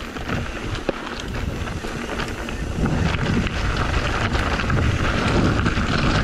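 Mountain bike rolling down a rocky gravel trail, tyres crunching over loose stones with the bike rattling, and wind buffeting the action-camera microphone; the rumble gets louder from about three seconds in.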